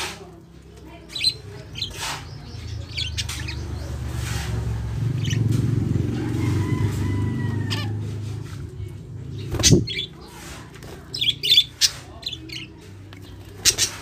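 Zebra finches in an aviary give short high chirps, scattered and in small clusters, with wings fluttering as they come and go at a hanging feeder. A low rumble swells through the middle, and a sharp knock sounds about ten seconds in.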